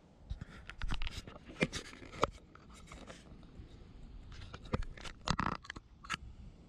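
Close-up handling noise: irregular sharp clicks, knocks and scrapes in two bunches, as a hand grips and lifts a just-caught spotted bass by its lower lip.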